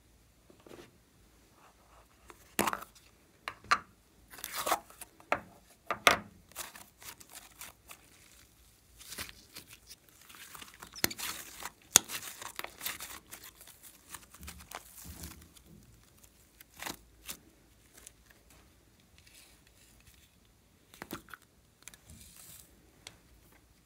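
Hands squeezing and pulling a lump of green slime: irregular sticky crackles, pops and tearing sounds. A denser run of crackling comes about halfway through, with one sharp snap the loudest moment.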